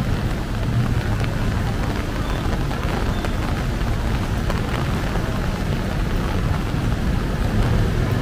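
Steady rain over a low, continuous rumble of city traffic.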